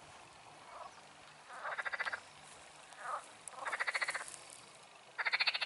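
Frogs croaking: short rattling calls, each a fast train of pulses about half a second long, repeating about every second and a half, with fainter, shorter calls in between.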